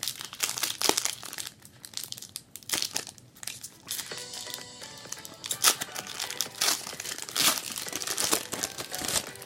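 A trading card pack's wrapper being torn open and crinkled by hand, with irregular crackling and rustling as the cards are pulled out. Faint background music comes in about four seconds in.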